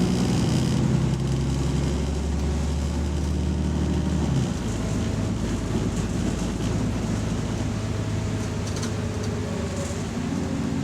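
Bus engine running with a steady low drone; about four and a half seconds in, the note changes abruptly and drops to a lower, lighter drone.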